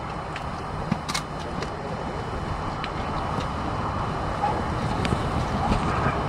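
Light-rail tram approaching on a curved track, its running noise growing steadily louder.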